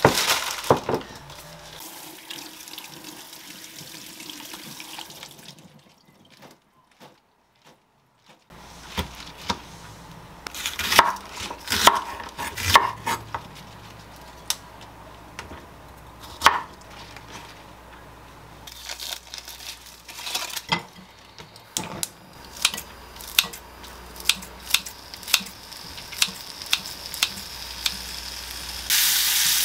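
A sequence of kitchen work sounds. First a plastic bag rustles. Then a knife chops bok choy on a wooden cutting board in a few sharp strokes, and kitchen scissors snip bacon into a frying pan, about one and a half snips a second. Near the end the bacon starts sizzling in the hot pan.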